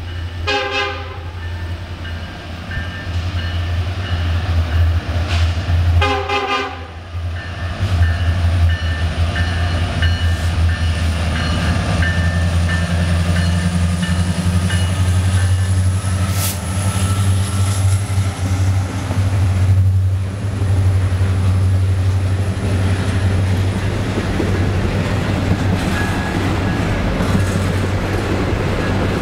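Norfolk Southern diesel locomotives rumbling as they pull a double-stack intermodal train out of a tunnel, with two short horn sounds about half a second in and around six seconds. The drone then gives way to the steady rolling and clickety-clack of the container cars, with a thin high wheel squeal through the middle.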